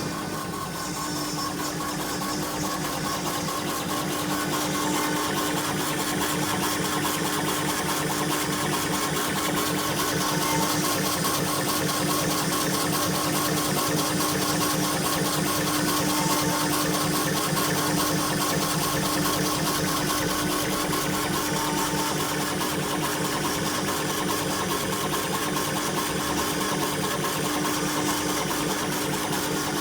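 CNC router and CO2 laser combo machine running on a stone job: a steady hum near 300 Hz over a fast, even mechanical chatter.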